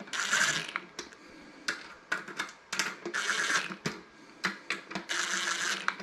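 Cordless brushless impact driver hammering in short bursts as it snugs up the screws that hold a hard drive through the bottom of a sheet-metal recorder case. There are three longer bursts, near the start, about halfway and near the end, with brief blips in between.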